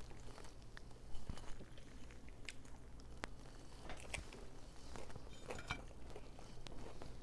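Close-miked eating: biting into a slice of vegetable pizza and chewing, with scattered small crunches and mouth clicks, over a faint steady low hum.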